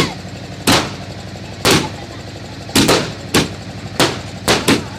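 Firecrackers going off in a rapid, irregular string of about eight loud, sharp bangs, spaced half a second to a second apart.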